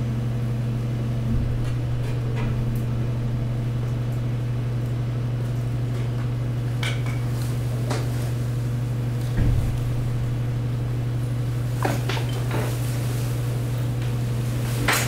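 Steady low hum of a large hydraulic garbage press's pump unit running, with scattered cracks and snaps of waste being crushed and a low thump about nine seconds in.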